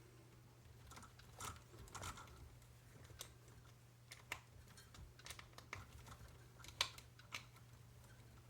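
Faint, scattered light clicks and taps of small parts and tools being handled while an RC car's wheel hub is put back together, over a faint low hum.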